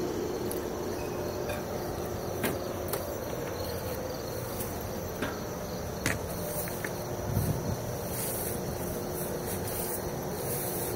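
Outdoor ambience of insects droning steadily at a high pitch over a low background haze, with a few faint clicks and knocks.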